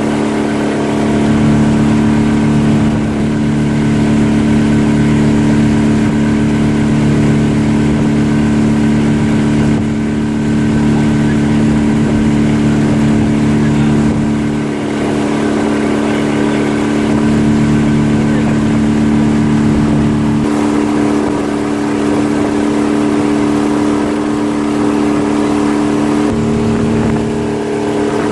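Boat engine running steadily at cruising speed, under the rush of water and wind, its pitch shifting slightly about twenty and twenty-six seconds in.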